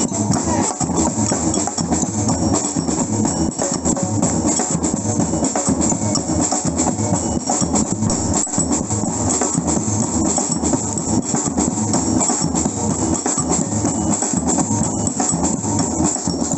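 Batucada, a Brazilian samba percussion ensemble, playing a steady driving beat on drums and shakers.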